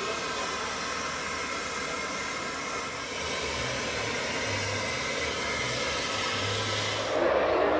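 Steady hiss of compressed gas rushing from a tube trailer through a hose into a gas balloon as it is inflated, with a faint low hum coming and going. A louder, lower noise takes over just before the end.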